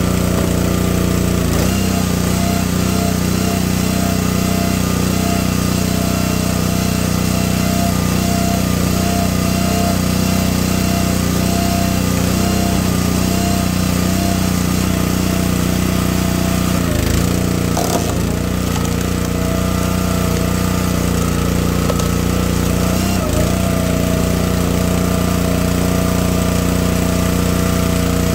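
Gas engine of a Gravely 22-ton log splitter running steadily, driving the hydraulic ram through a big ash round in vertical mode. Its note dips briefly a couple of times, about two-thirds of the way through and again near the end.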